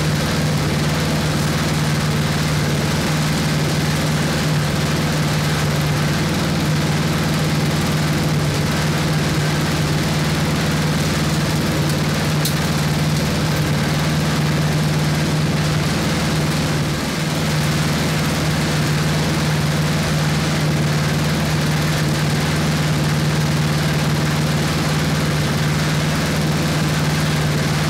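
1979 Toro 826 snowblower's 8 hp Briggs & Stratton single-cylinder engine running steadily on a little choke, with a brief dip about seventeen seconds in.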